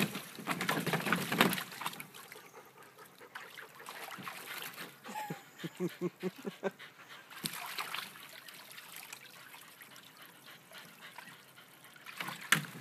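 Water splashing and trickling, loudest in the first second and a half. A dog whimpers in a quick run of short cries a few seconds later.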